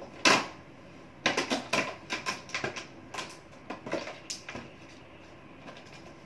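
Paper being handled at a craft table: a loud, sharp rustle as a folded paper piece is pressed onto a sheet, then a run of light clicks and rustles for a few seconds before it falls quiet.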